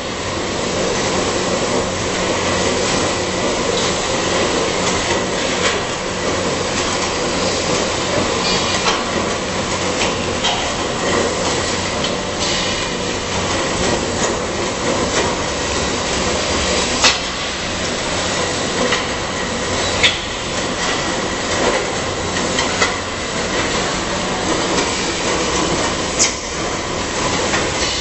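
Screw conveyor running, its auger turning inside the tube and carrying dry powder: a steady, loud mechanical rattle with sharp clicks now and then.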